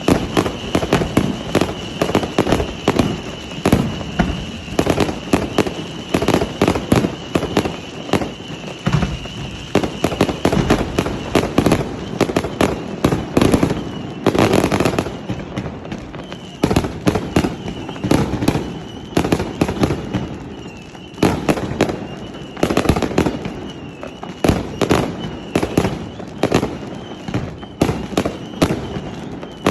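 Fireworks display: shells bursting in quick succession, several bangs and crackles a second, with the densest, loudest flurry about halfway through.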